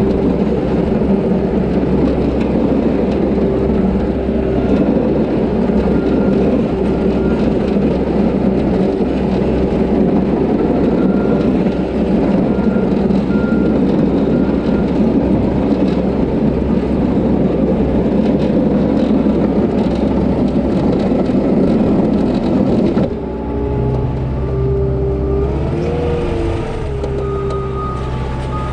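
Diesel engine of snow-clearing heavy equipment running hard under load. About three-quarters of the way through it drops abruptly to quieter running, with a brief rise and fall in engine pitch soon after.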